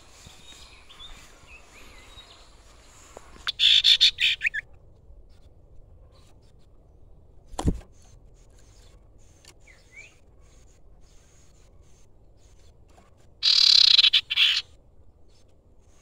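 Common iora calling: two loud bursts of a rapid trilled chatter, each about a second long and about ten seconds apart, with faint chirps between. A single dull thump comes about midway.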